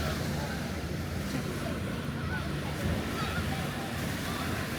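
Gulf of Mexico surf washing onto the beach in a steady wash, with wind rumbling on the microphone.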